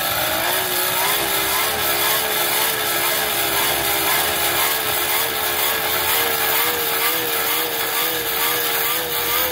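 Coal forge's air blower running, a steady whine that wavers slightly over a rush of air, forcing air up through the coals to drive the metal toward a white heat.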